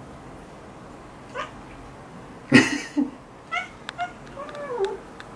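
Domestic cat meowing in protest at being held on its back for claw trimming: a few short cries, a loud sharp one about halfway, and a falling meow near the end. A few sharp clicks sound in between.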